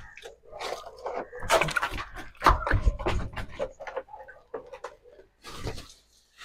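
Knocks and scrapes of a blue plastic water drum being carried and set down on concrete, with a few heavier thuds about two and a half to three seconds in.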